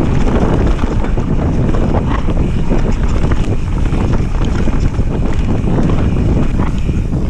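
Wind buffeting the microphone and mountain-bike tyres rumbling over a rough dirt trail at speed, with frequent small knocks and rattles from the bike.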